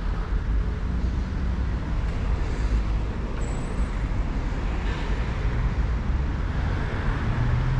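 Steady road traffic noise, with a heavy low rumble.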